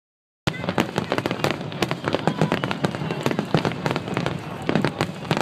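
Fireworks going off in a rapid, irregular stream of sharp pops and crackles, starting suddenly about half a second in.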